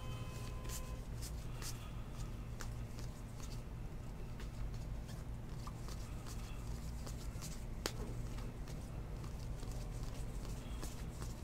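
Baseball trading cards being thumbed and slid from one hand to the other, one after another, giving light scattered clicks and rustles, with one sharper click about eight seconds in. A steady low hum runs underneath.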